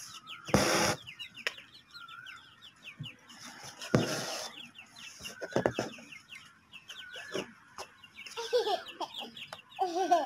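Chickens clucking, with many quick high chirps throughout. Two short rasps stand out, about half a second and four seconds in, likely from thread being drawn through the cloth.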